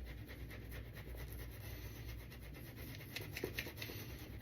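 Faint scratchy swishing of a hybrid synthetic-badger shaving brush working lather in quick strokes, with a few light ticks about three seconds in.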